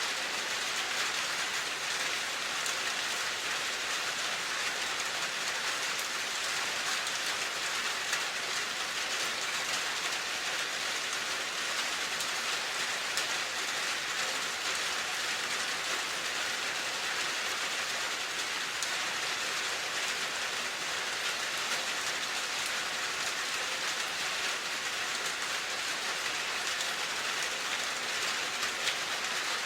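Steady rain falling, an even hiss of many drops with faint fine patter.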